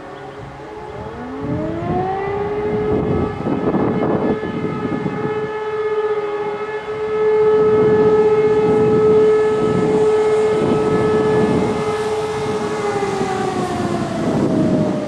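Type E57 civil-defence sirens sounding one blast of the fire-alarm signal. The wail winds up about a second in, holds a steady pitch, then winds down near the end. Gusts of wind buffet the microphone throughout.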